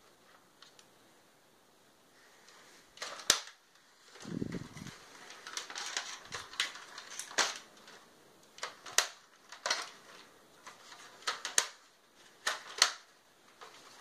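Plastic body and swing-up doors of a toy remote-control Ferrari LaFerrari being handled: a dozen or so irregular sharp plastic clicks and clacks, with a dull thump about four and a half seconds in.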